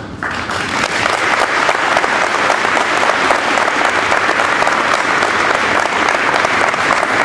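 Audience applauding steadily: many people clapping together, starting just after the opening moment.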